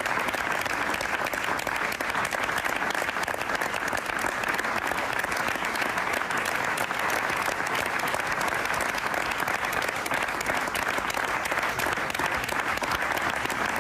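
A large crowd clapping in steady, spontaneous applause.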